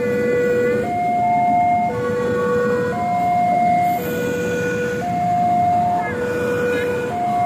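Railway level-crossing warning alarm sounding, a lower and a higher tone taking turns about once a second, over the low rumble of passenger coaches running past the crossing.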